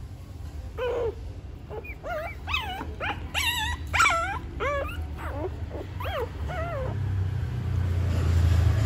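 Newborn puppies whimpering: about a dozen short, high, squeaky cries that rise and fall in pitch, coming quickly one after another, then a low rustling rumble near the end.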